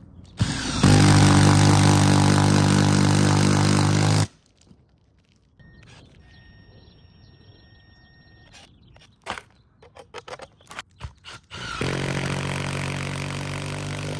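Battery-powered driver running steadily for about three and a half seconds, driving the lag screw of an IronRidge FlashFoot2 roof mount through the shingles into a rafter. After a pause with a few light clicks and knocks, it runs again near the end on the next mount.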